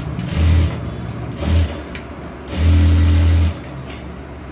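Motorised sewing machine running in three short bursts, the last and longest about a second, as a second line of stitching is run over a sewn blouse band.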